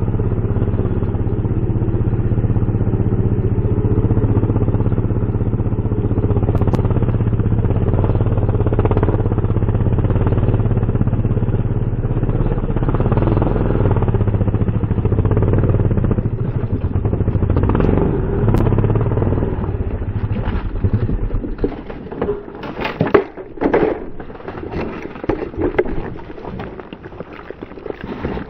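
Suzuki DRZ400SM's single-cylinder four-stroke engine running steadily at low revs as the bike picks its way down a rocky slope. About two-thirds of the way in the engine stops, and irregular knocks and scrapes follow, the loudest a couple of seconds later.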